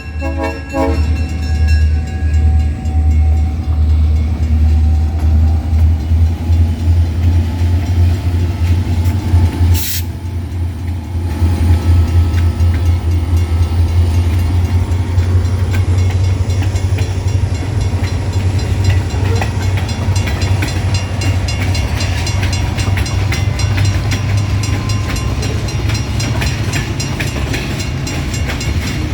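Great Lakes Central short-line train rolling past: a loud, steady low rumble of wheels on rail with fast rhythmic clicking. The last of a horn blast cuts off about half a second in.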